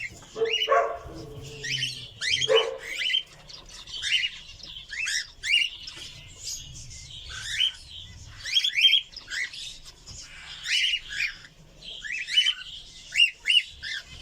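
Cockatiels chirping in an aviary: many short, sharp calls in quick succession, with a couple of lower, drawn-out squawks in the first few seconds.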